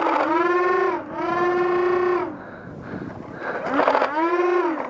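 Nerf Rapidstrike's flywheel motors revving: each rev is a steady whine that rises as the wheels spin up, holds for about a second, then falls away as they spin down. It happens in quick repeated revs, with a pause of over a second before the last one near the end.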